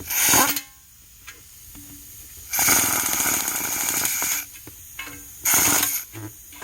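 Power tool running down the transmission oil pan bolts in bursts: a short one, a longer one of about two seconds, then another short one. The bolts are snugged by power tool before final tightening by hand ratchet so the pan gasket isn't crushed.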